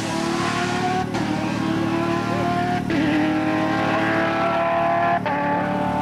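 Porsche 997 GT3 rally car's flat-six engine accelerating hard away. The revs climb in each gear and are cut by three quick upshifts, about one, three and five seconds in.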